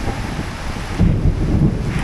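Heavy rain falling steadily, with wind buffeting the microphone; from about a second in a louder, uneven low rumble sets in.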